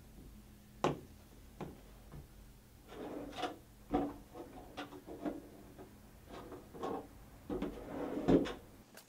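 A desk drawer being opened and rummaged through: a string of separate knocks, clicks and short scrapes spread over several seconds.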